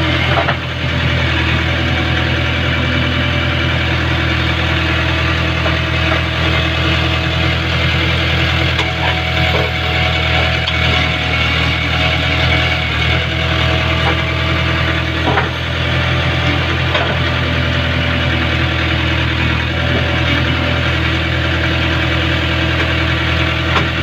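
A JCB backhoe loader's diesel engine runs steadily under working load, heard close from the operator's seat, with a couple of faint knocks from the arm and bucket.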